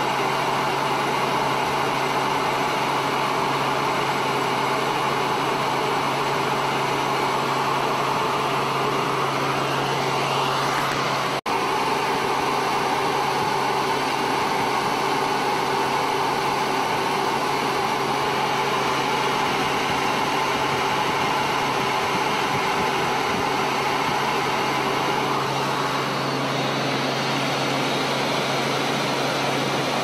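Steady drone of an aircraft's engine heard from inside the cabin, holding an even pitch, with a momentary dropout about eleven seconds in.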